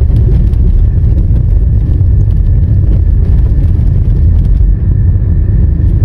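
Steady low rumble of a car driving slowly, engine and tyre noise heard from the moving vehicle.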